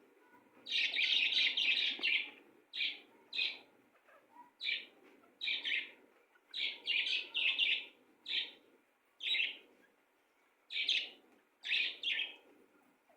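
A bird chirping in short, sharp calls. There is a longer run of chirps about a second in, then single or paired chirps roughly once a second.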